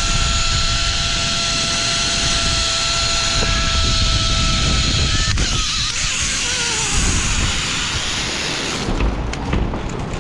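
Zip-line trolley pulleys running along the steel cable with a steady whine over a rush of wind. About five seconds in the whine falls in pitch as the trolley slows, and near the end a run of sharp knocks and rattles comes as the end brake catches, a braking the rider calls dangerous.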